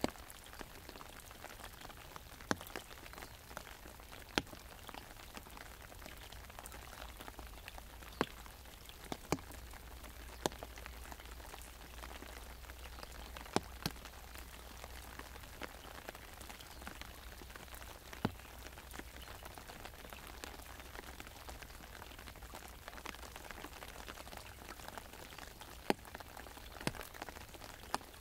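Rain pattering steadily on an umbrella overhead, with single heavier drops hitting it sharply every second or two.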